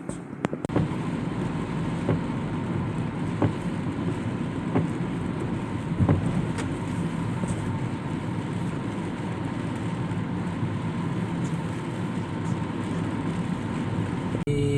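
Steady vehicle running noise: a low rumble with a faint steady whine and a few sharp clicks.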